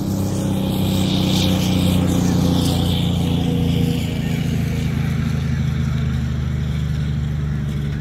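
An engine running steadily with a low hum, swelling slightly about two seconds in and easing off again.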